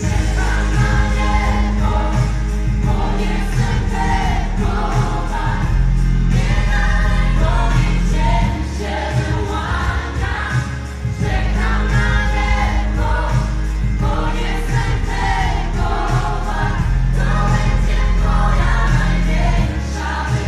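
A vocal group sings a pop-gospel song in harmony over a live band, with a strong bass line and a steady drum beat.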